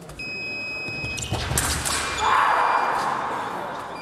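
An electronic fencing scoring machine gives a steady beep for about a second. Then comes a short clatter and a louder rush of noise that fades over about a second.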